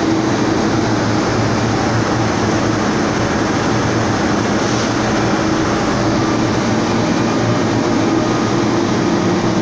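Steady, loud industrial rumble of an overhead ladle crane running in a steel mill, with a constant low hum and no distinct impacts.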